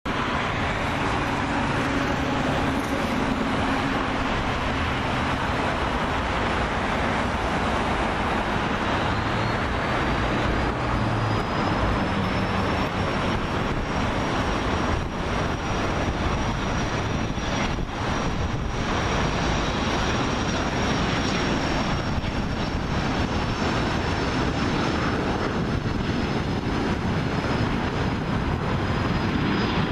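Cessna 525B Citation CJ3 business jet's twin Williams FJ44 turbofans running on the ground: a steady rushing noise with a high whine that rises about ten seconds in and then holds.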